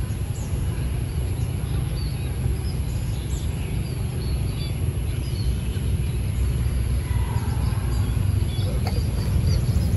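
Outdoor ambience: a steady low rumble with scattered small bird chirps.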